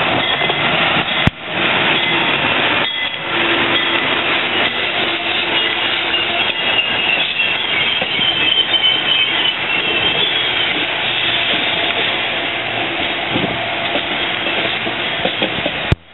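Amtrak Northeast Regional train led by an AEM-7 electric locomotive passing at speed: loud, steady noise of the coaches' wheels running on the rails, with a thin high wheel squeal in the middle.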